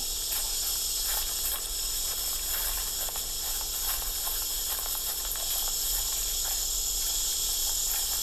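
Steady high-pitched drone of insects, with scattered faint crackles of feet and branches breaking through undergrowth as people run through brush.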